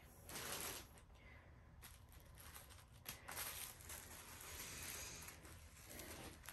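Faint rustling of small plastic zip-lock bags of diamond-painting drills as they are picked up and handled, in a few short soft patches.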